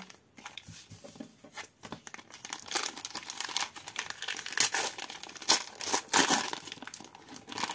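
Wrapping on a trading-card tin and the card pack inside crinkling and tearing as it is pulled open by hand. The crackles are dense and irregular and grow busier in the second half.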